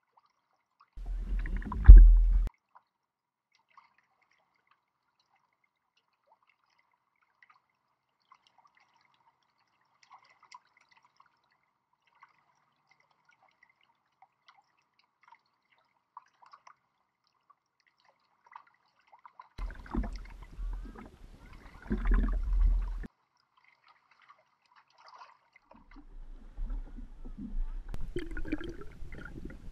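Water sloshing and gurgling in short bursts, with long near-quiet stretches between. The loudest burst is a low rumble about two seconds in. Near the end it is heard with the camera underwater.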